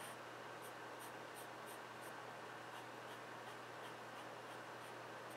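Graphite pencil scratching on drawing paper in short, quick slanted strokes as pine needles are sketched. The strokes come in a quick run in the first two seconds, then sparser and fainter.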